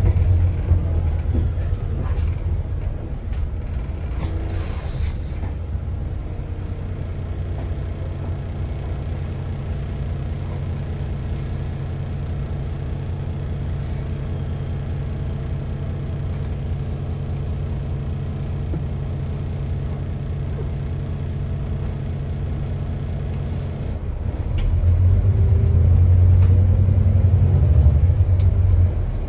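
Alexander Dennis Enviro400 MMC Smart Hybrid double-decker bus heard from the passenger cabin: a steady low drone of the running bus. The drone swells louder near the end as the drivetrain works harder.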